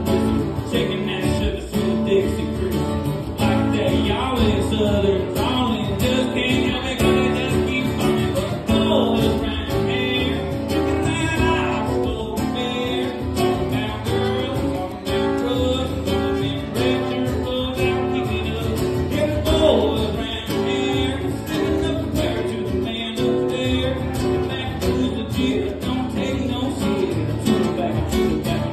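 Two acoustic guitars played together, a steady strummed and picked duet.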